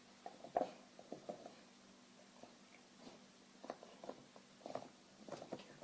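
A dog gnawing on a bone: faint, irregular clicks and taps in short clusters.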